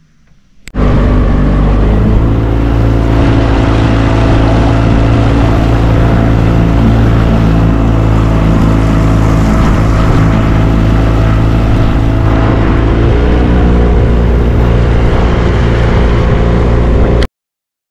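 Boat motor running steadily at close range, loud, with a steady engine hum; it starts suddenly under a second in, its pitch dips slightly about thirteen seconds in, and it cuts off abruptly near the end.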